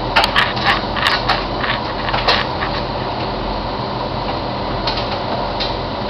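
Bosch Logixx 8 washing machine in its main wash, the drum turning with a steady motor hum. A run of irregular clicks and knocks comes in the first couple of seconds, then it settles to steady running.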